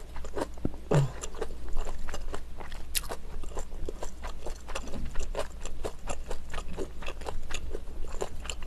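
Close-miked chewing of rice cake soup: irregular wet clicks and smacks of the mouth working soft rice cake slices, glass noodles and beef.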